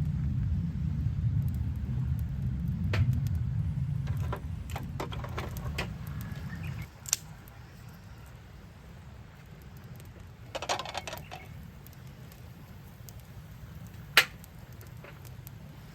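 Wood campfire crackling with scattered pops, the sharpest about 7 and 14 seconds in. A low rumble fills the first seven seconds, then drops away.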